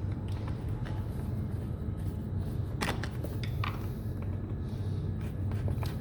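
Scattered clicks and light knocks of hand tools and parts being handled while the airbox clamp is tightened, the sharpest click a little under three seconds in, over a steady low hum.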